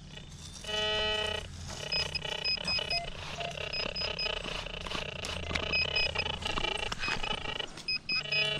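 Handheld metal-detector pinpointer sounding its electronic alert as it is worked through the sand over a buried metal target: a short steady tone about a second in, then repeated quick high beeps in small groups. Light scraping of a digging knife in the sand runs under it.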